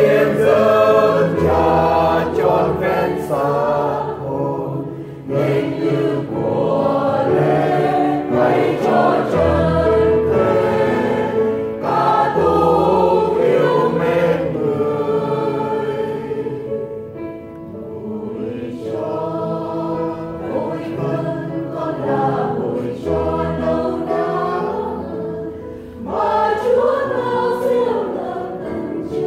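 A choir singing a Vietnamese Catholic offertory hymn, many voices holding long, sustained notes over a low bass line.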